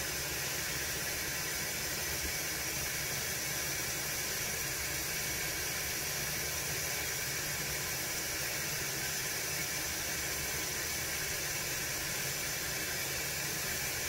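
Steady hiss of tap water pouring through a hose into the tub of a Costway mini twin-tub washing machine as it fills.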